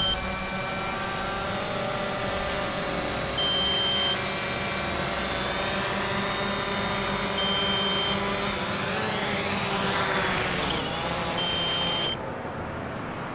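DJI Mavic Pro quadcopter's propellers whining steadily as it flies low and comes down to land. The pitch falls near the end, and then the motors cut off abruptly. A few short high beeps sound over the whine.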